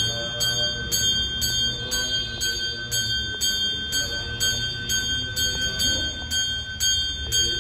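Puja hand bell (ghanta) rung steadily at about two strokes a second during the incense offering, each stroke ringing on into the next in a steady high chime.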